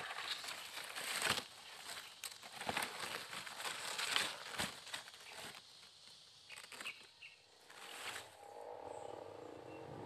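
Leaves and fern fronds rustling and crackling, with sharp snaps of stems, as someone pushes through dense undergrowth by hand. After about eight seconds the rustling stops and a softer, steady outdoor sound takes over.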